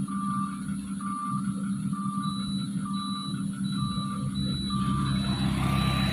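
Diesel engine of a Mitsubishi Fuso truck running steadily under a reversing alarm beeping about once a second. A second, higher-pitched reversing beeper joins about two seconds in, alternating with the first. Near the end the noise swells as a motorcycle passes close by.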